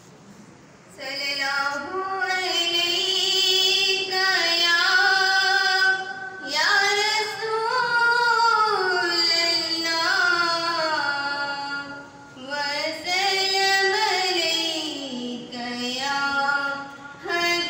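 A woman's unaccompanied melodic religious recitation into a microphone: one solo voice in long phrases of held, gliding notes, starting about a second in.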